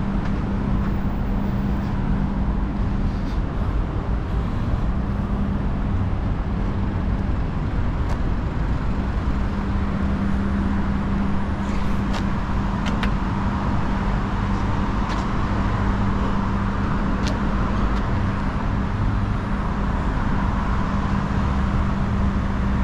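Steady city road traffic noise with a continuous low hum that fades out briefly about a third of the way in, and a few faint clicks in the second half.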